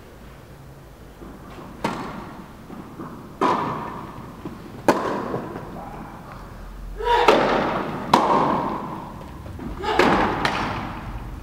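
Tennis ball struck back and forth by rackets in a rally, a sharp pop every one to two seconds, each ringing on in the echo of an indoor tennis hall.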